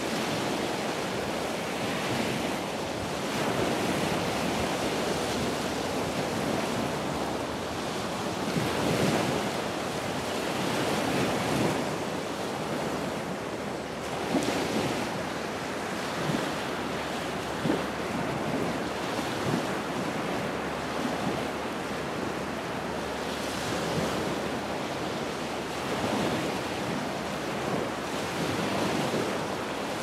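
Continuous rushing water: a steady hiss that swells and eases irregularly, with a few brief sharper splashes.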